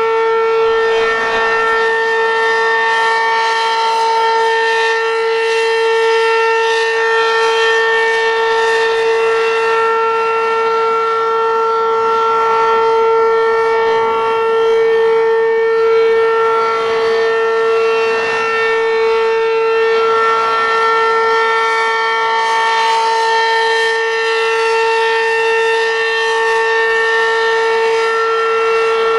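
Werden Electric P-127 outdoor warning siren sounding the steady full-alert signal: one loud, unchanging tone with a stack of overtones above it.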